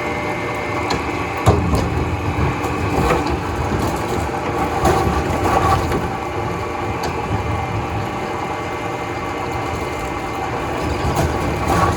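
Wood veneer factory machinery running: a steady mechanical hum and rumble, with sharp knocks now and then.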